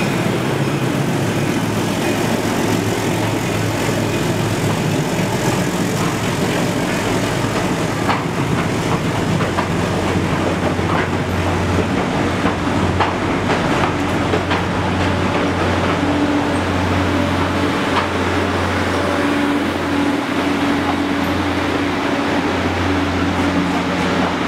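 PeruRail passenger train carriages rolling past on the track: a steady low hum and rumble, with scattered sharp clicks and knocks from the wheels on the rails through the middle of the passage.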